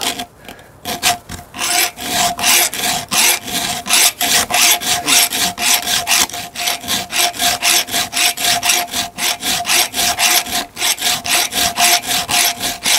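A round chainsaw file rasps back and forth across a saw-chain cutter in a quick, even run of strokes, about four a second, starting about a second in, with a faint steady ring underneath. The cutter's angle is badly worn down, so it takes many strokes to bring it back.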